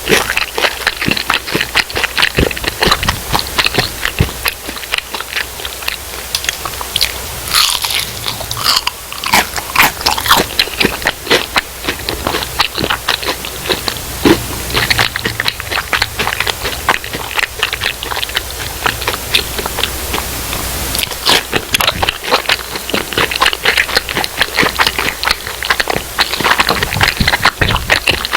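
A person biting into and chewing crispy fried food close to the microphone, a continuous run of crisp crunches.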